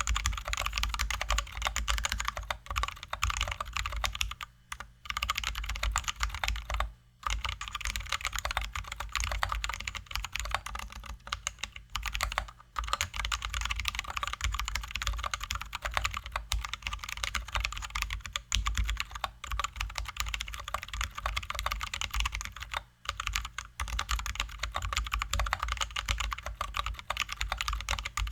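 Fast continuous typing on a Drop ALT High-profile mechanical keyboard with lubed, filmed Zealios V2 67g tactile switches and XDA-profile keycaps, the keystrokes running densely with a few short pauses.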